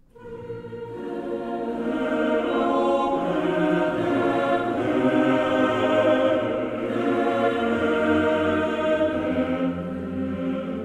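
Background music of slow, sustained choral chords, swelling up over the first two seconds after a brief silence.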